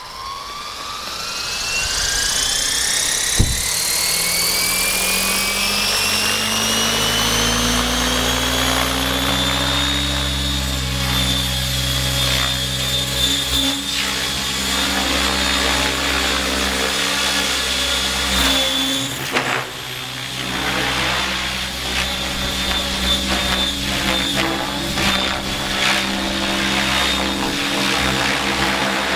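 Radio-controlled model helicopter spooling up: a high whine rises steadily in pitch for about ten seconds as the rotor comes up to speed, with a single sharp knock about three seconds in. It then holds a steady high whine over a lower rotor hum while flying, wavering in level as it moves.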